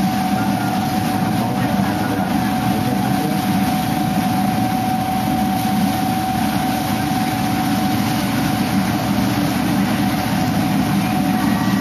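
A boat under way, its engine running steadily beneath an even rushing noise, with a constant hum.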